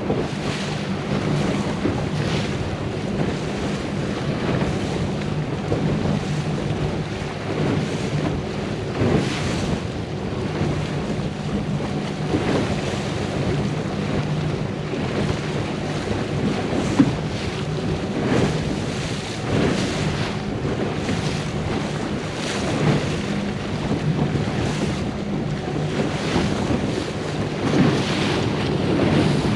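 Wind buffeting the microphone and water rushing and splashing around a moving boat, over a steady low engine hum.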